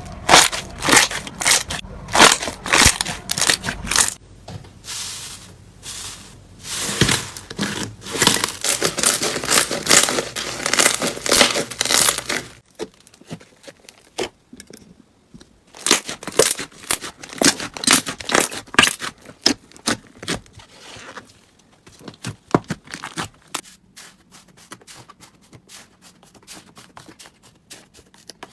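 Slime being squeezed and stretched by hand, giving dense crackling and popping. About twelve seconds in the sound changes abruptly, and near the end the pops become sparser and quieter.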